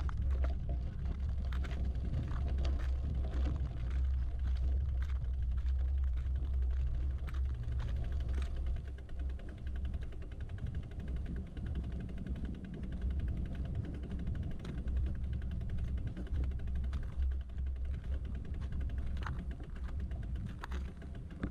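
Wind buffeting a microphone on a moving bicycle, a steady low rumble, with scattered clicks and rattles from the bike riding over the road.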